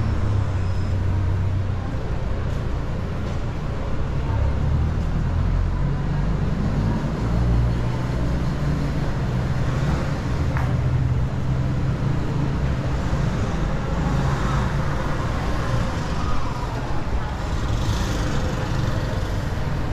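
Busy city street traffic: vehicle engines running and passing in a steady low rumble, with a brief hiss near the end.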